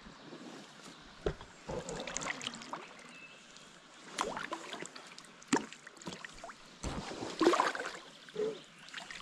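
Paddle strokes from a packraft: the paddle blades dipping and splashing in the water in irregular spells, with drips and a few sharp knocks.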